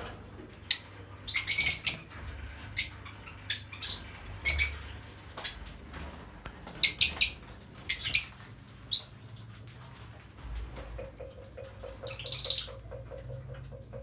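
Caged lovebirds giving sharp, high chirps and squawks, about a dozen calls over the first nine seconds, some in quick runs of two or three. The calls then stop, leaving a faint, rapid, even low pulsing.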